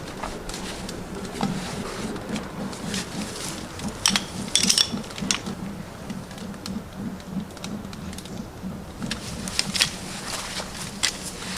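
Wood fire crackling in a pail-can rocket stove, sharp pops scattered through, thickest about four to five seconds in and again near ten seconds, over a low steady hum.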